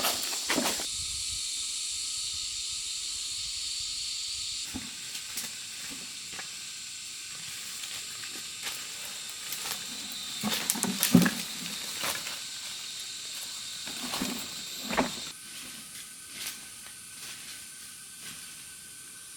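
A steady high hiss with scattered clicks and knocks, the loudest knock about eleven seconds in.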